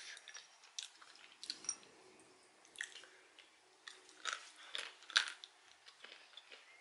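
Roasted peanuts being chewed with the mouth close to the microphone: irregular sharp crunches, the loudest about five seconds in.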